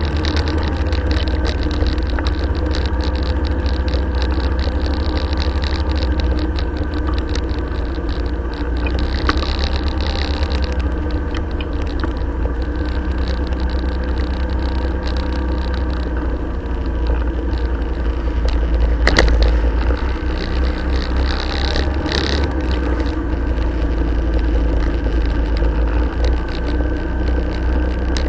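Motorcycle engine running steadily at a slow cruise, with wind rumbling on the bike-mounted camera's microphone. One brief knock about two-thirds of the way in.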